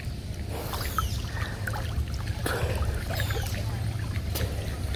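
Water sloshing and splashing close to the microphone at the surface of a muddy mangrove channel, with a few sharper splashes, over a steady low rumble. Short high chirps come and go.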